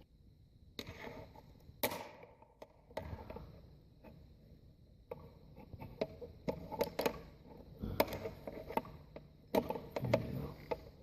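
Irregular knocks and clicks of hard objects: a dozen or so sharp taps scattered unevenly, with quieter rustling and clatter between them.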